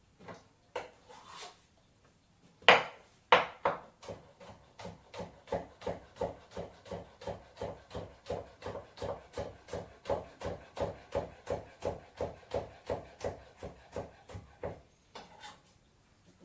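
Knife chopping on a cutting board while a salad is made: two heavier knocks, then a steady run of chops at about three a second that stops near the end.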